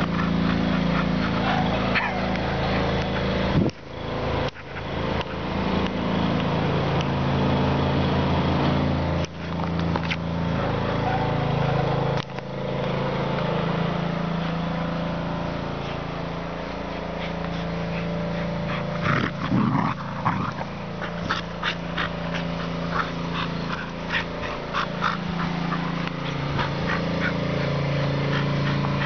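Norwegian Elkhound growling in long stretches while tugging on a rope toy, with brief breaks. A run of short sharp clicks comes about two-thirds of the way through.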